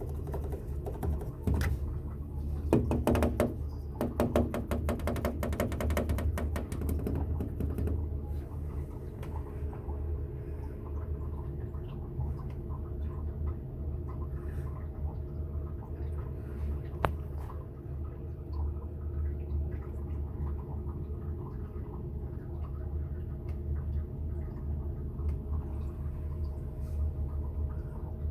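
A cat pawing and clawing at a door: a dense run of rapid clicking and rattling for the first several seconds, then scattered light knocks and one sharp click about two-thirds of the way through, over a steady low hum.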